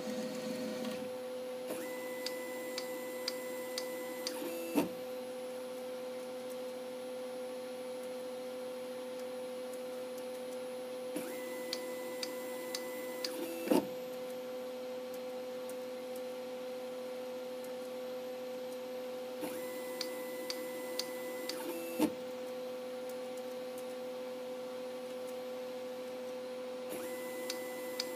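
Stepper-motor-driven automatic tool-changer turret on an Emco Compact 5 CNC lathe indexing. Three times, and a fourth starting near the end, the motor whines and ticks for about three seconds while the turret turns, then stops with a sharp clunk. A steady electrical hum runs underneath throughout.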